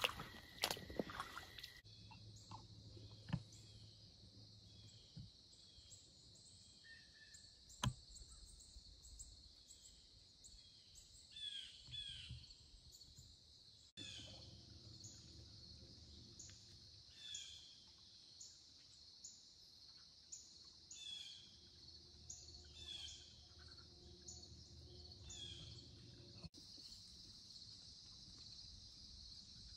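Faint woodland ambience: a steady high insect chorus of crickets, with a bird repeating short down-slurred chirps every second or two and a few scattered soft clicks.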